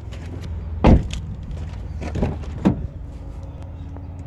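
Several sharp knocks and clunks from handling parts inside a car's cabin, the loudest about a second in and two more a couple of seconds in, over a steady low rumble.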